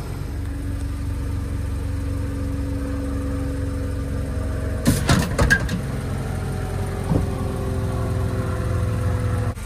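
1998 Honda Civic's four-cylinder engine idling steadily, just running again now that its corroded distributor cap contacts have been sanded clean. A few sharp knocks come about halfway through, and one more a couple of seconds later.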